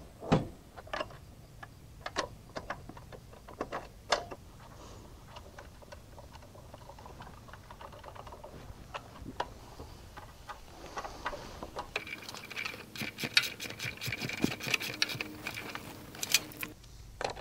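Steel tools and parts clinking now and then as a sawmill axle is pinned in place with a shoulder bolt, then a socket ratchet clicking rapidly for several seconds near the end as the bolt is tightened.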